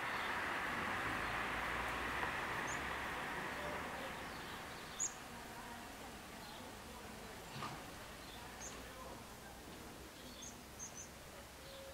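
Rushing noise of a passing regional train that fades away over the first few seconds, leaving quiet outdoor ambience with a few short bird chirps.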